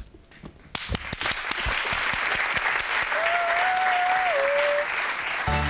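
Studio audience applauding, swelling up about a second in and holding steady, with one wavering whistle-like tone rising above the clapping for about a second and a half midway. The applause gives way to music just before the end.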